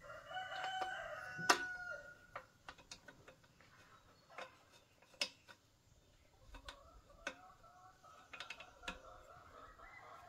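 A rooster crows, one long call at the start and another fainter one in the last few seconds. Over it come sharp metallic clicks and clinks from a wrench working on the air compressor head's pipe fittings.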